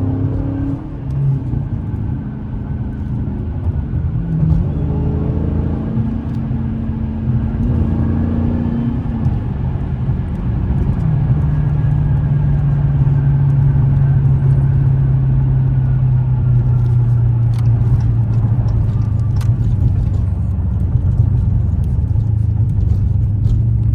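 Dodge Scat Pack's 6.4-litre HEMI V8 through a straight-piped exhaust, heard from inside the car while driving. The engine's pitch rises and falls for the first several seconds, then about eleven seconds in settles into a steady low drone at cruise, the cabin drone that the straight pipe made louder.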